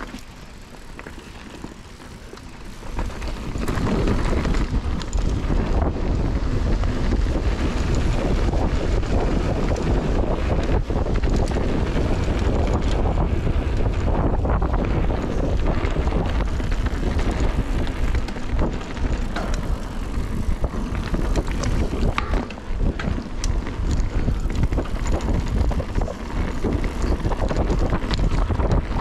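Wind rushing over the microphone, along with tyre noise and the clicks and knocks of a Giant Reign full-suspension mountain bike rolling down a dirt trail. It is quieter at first and swells to a steady roar about three seconds in as the bike picks up speed.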